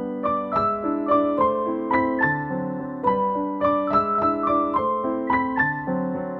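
Background music: a gentle piano melody of evenly paced notes, about three a second, over held lower notes.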